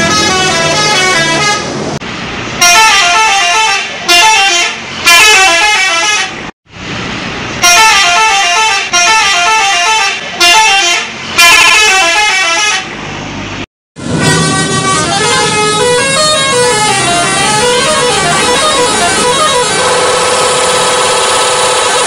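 Indonesian bus 'telolet' musical horns sounding short stepping multi-note tunes in repeated blasts about a second long. Two brief silent gaps break them up; after the second, the horn tunes run on without pause, several overlapping.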